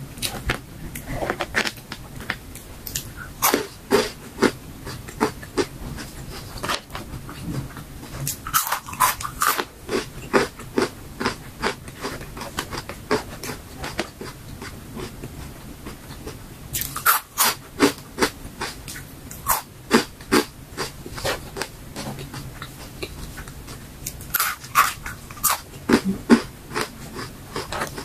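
Close-up crunching and chewing of dried fruit and vegetable chips: four spells of rapid crisp crunches as fresh pieces are bitten, with quieter chewing between them.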